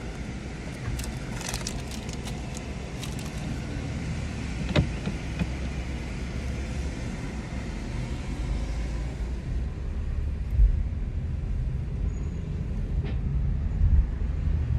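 Car engine and road rumble heard from inside the cabin. A few clicks and handling noises come in the first three seconds and a single knock about five seconds in. The low rumble grows from about eight seconds as the car pulls away, with a couple of thumps.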